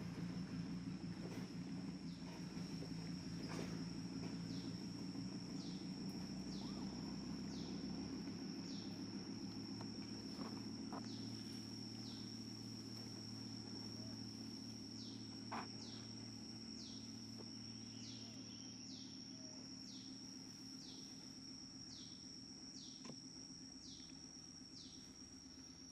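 Outdoor insect ambience: a steady high insect drone, with a short falling chirp repeated about once every two-thirds of a second from about five seconds in. A low steady hum runs underneath, with a faint click now and then.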